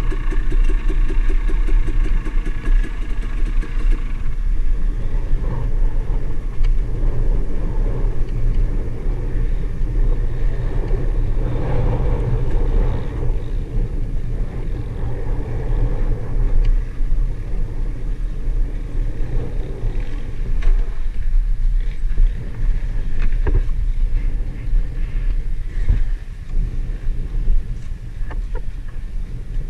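Dirt bike engine running under throttle on a dirt trail, revving up and down with the riding, over a constant low rumble. The engine note is clearest and steadiest in the first few seconds and eases off near the end.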